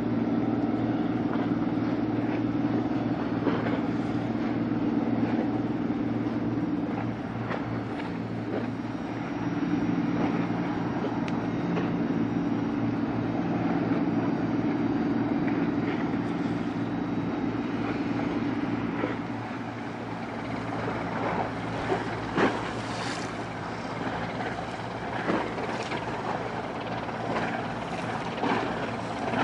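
A RORO cargo ship's machinery running with a steady low hum of several tones, easing off about two-thirds of the way through as it comes alongside. A few short sharp knocks follow near the end.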